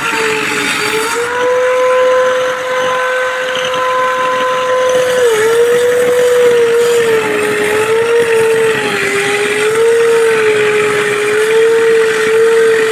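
Woodworking power tool's electric motor running at high speed: a steady high-pitched whine over a hiss. The pitch dips briefly about five seconds in and wavers up and down later on.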